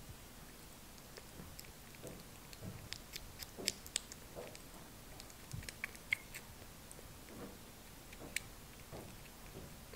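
A kitten eating soft weaning food from a dish: irregular small wet clicks and smacks of lapping and chewing, busiest in the middle.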